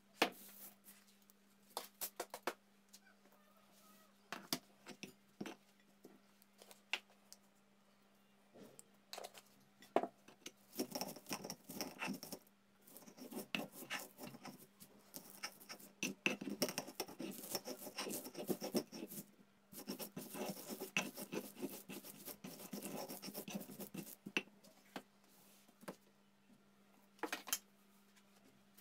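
Stone pestle crushing garlic cloves and peppercorns in a flat stone mortar (cobek): scattered knocks and cracks for about the first ten seconds, then steady scraping and grinding strokes of stone on stone as they are worked into a paste, with a couple of short pauses.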